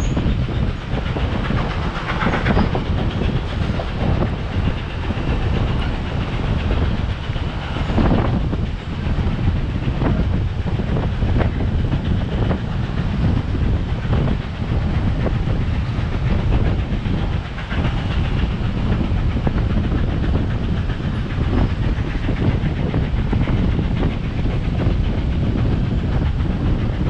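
Passenger train coach rolling along the track at speed: a steady rumble of wheels on rail with clicks and knocks from rail joints now and then, heard from outside the car window with wind on the microphone.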